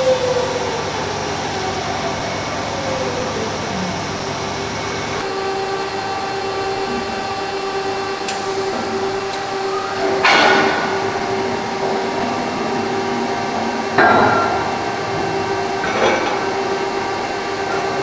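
Three-axis H-beam drilling machine running: a steady hum with several held tones, a falling whine in the first few seconds, and three sharp metallic knocks with a short ring, about ten, fourteen and sixteen seconds in.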